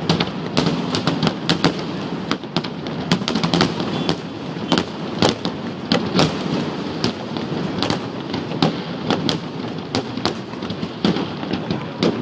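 Fireworks display: dense, irregular bangs and crackles, several a second, overlapping on a steady rumbling wash of noise.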